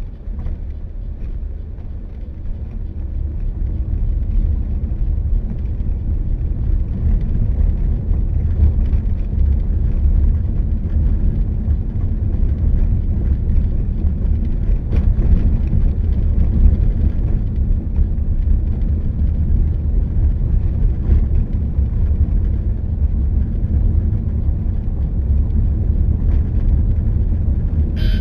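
Steady low rumble of road and wind noise from a vehicle travelling along a road, growing louder about four seconds in.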